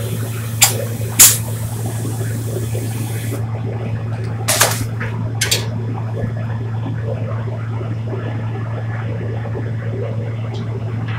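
Spray gun hissing as finish is sprayed onto wooden boards, with two loud short spurts in the first second or so; the hiss cuts off about a third of the way in, and two more short bursts follow. A steady low hum from the spray booth's extraction runs underneath.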